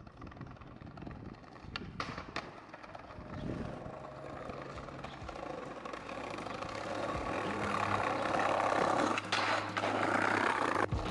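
Skateboard rolling on paving, the wheel noise growing louder as the skater comes closer, with two sharp board clacks about two seconds in.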